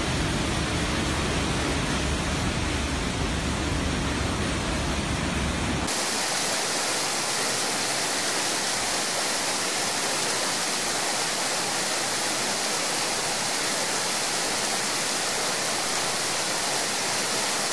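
Rushing floodwater: a steady roar of muddy water with a deep rumble. About six seconds in, the sound changes abruptly to an even, thinner hiss without the low rumble.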